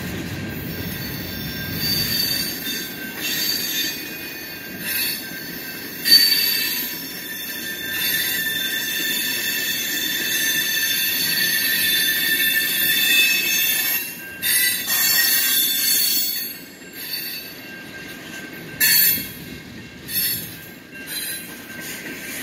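Freight train of tank cars rolling past close by, its steel wheels squealing on the rails in high-pitched screeches that rise and drop away again and again. The loudest screeches come about six seconds in and again near the nineteen-second mark, over a low rolling rumble that fades in the first few seconds.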